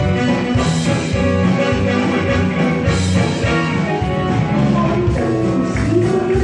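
A live band playing rock music, with electric guitar and drum kit.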